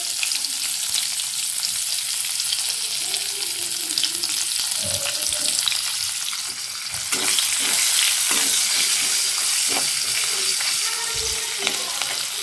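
Sliced onions sizzling in hot oil with bay leaves, whole spices and dried red chillies in a metal kadai, a steady high hiss. A spatula scrapes and stirs through them a few times in the middle, and the sizzle grows a little louder partway through.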